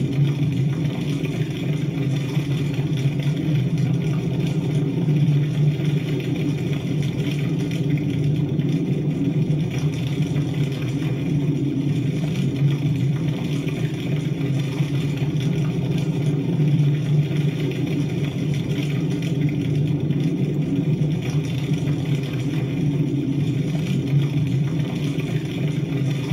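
A steady, even low rumble with a fainter hiss above it.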